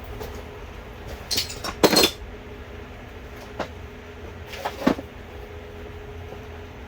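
A few short metallic clinks and knocks of hand tools being handled, the loudest about two seconds in, over a steady low hum.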